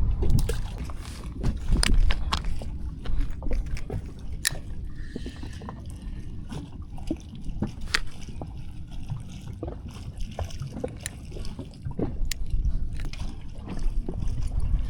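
Water sloshing against a boat's hull over a low steady rumble, with scattered sharp clicks and taps throughout.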